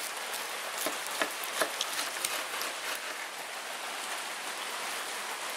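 Steady rain hiss, with a few sharp crackles in the first three seconds as a knife saws through the crisp, caramelised pork-belly rind.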